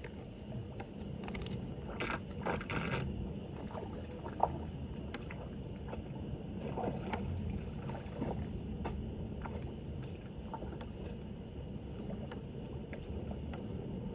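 Standing floodwater sloshing and churning over a street drain, with a steady low rumble and scattered short splashes and scrapes, a cluster about two seconds in and more around the middle.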